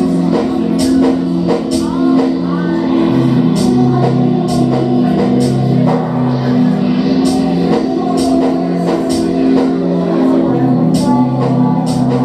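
A live rock band playing: sustained guitar and bass chords that shift every second or so, under irregular cymbal and drum hits.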